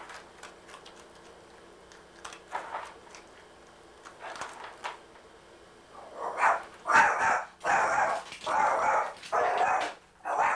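A dog barking, about six loud barks in quick succession starting about six seconds in, after a quiet stretch with only a few faint sounds.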